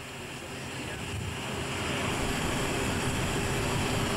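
Steady rushing noise of aircraft engines on an airfield, swelling over the first couple of seconds and then holding level.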